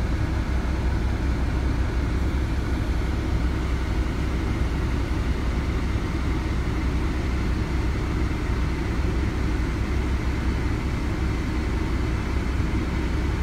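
Kenworth T680's PACCAR MX-13 inline-six diesel idling steadily, heard from inside the cab as a low, even rumble.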